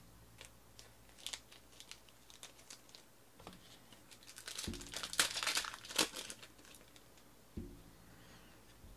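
Foil wrapper of a Panini Elite Extra Edition trading-card pack crinkling and being torn open, loudest about halfway through. Light clicks of cards being handled come before it.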